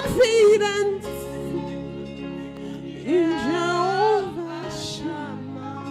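Women singing a gospel worship song into microphones over a steady instrumental backing. A held, wavering note opens, then the voices drop back, and a new sung phrase rises about three seconds in.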